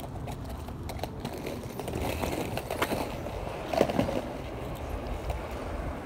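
Cruiser skateboard's wheels rolling over rough asphalt: a steady gritty rumble with a few clacks, the loudest a little before four seconds in.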